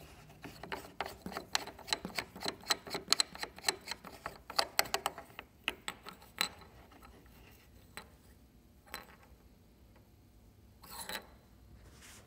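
Plastic drain plug being worked loose and pulled off a portable air conditioner's drain spout: a quick run of small plastic clicks and rubs for about six seconds, then a few single clicks and a short scrape near the end.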